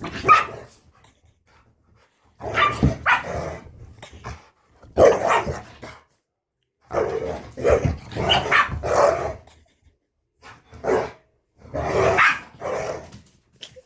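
Chihuahua and pit bull play-fighting: about six irregular bursts of barking and growling.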